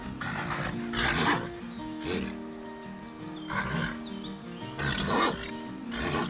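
Cattle bellowing and mooing, several separate calls, the loudest a little over a second in and about five seconds in, over background music.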